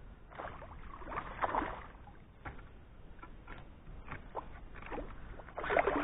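A small hooked fish splashing and thrashing at the surface right beside an inflatable boat, in a run of irregular water splashes. The biggest splash comes near the end.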